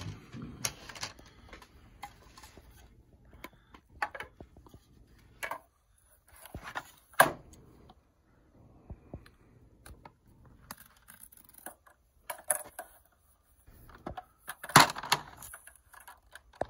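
Handling of hard plastic PCGS coin slabs and their plastic slab box: scattered clicks and clatters as slabs are stacked and the box is knocked on the counter, with a knife cutting along the box's seal. A few sharp knocks stand out, the loudest about seven and about fifteen seconds in.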